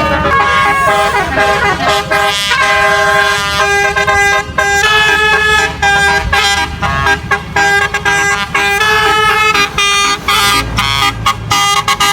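A tour bus's multi-tone 'telolet' melody horn playing a quick tune of short notes. The pitch steps every fraction of a second and the notes break off sharply, with a low engine rumble underneath.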